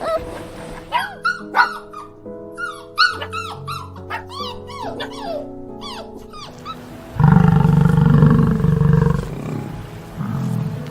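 Background music with quick, high chirping calls, then about seven seconds in an animal's loud, low growl lasting about two seconds, followed by shorter growls near the end.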